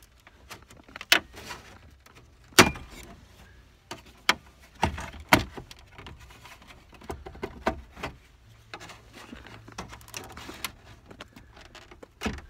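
Plastic dash shroud around a 1997–2003 Ford F-150's factory radio being pried and pulled loose: a string of sharp plastic snaps and clicks, the loudest about two and a half seconds in and again about five seconds in, with light plastic rattling between.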